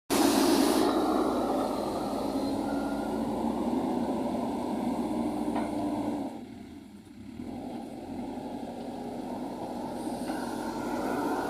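Diesel engine of heavy earthmoving machinery running steadily, dipping in level for about a second halfway through and then coming back.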